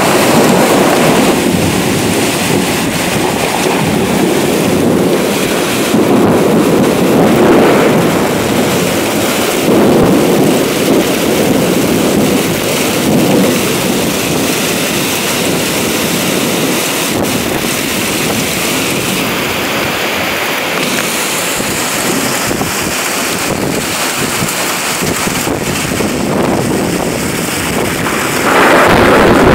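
Thunderstorm wind and heavy rain: a loud, steady rush that swells and eases every few seconds, with wind buffeting the microphone. It grows suddenly louder near the end as a stronger gust comes through.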